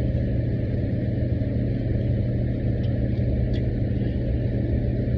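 Steady low mechanical hum that holds even throughout, with no speech over it.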